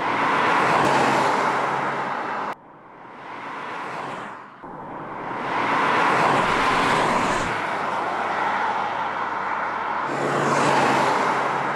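2018 Opel Insignia GSI driving past on the road, a rush of tyre and engine noise swelling and fading over several passes. The sound cuts off suddenly a little over two seconds in, then builds again.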